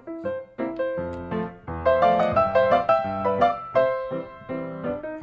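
Background music played on a keyboard: a light tune of separate notes, busier and louder for about a second and a half in the middle.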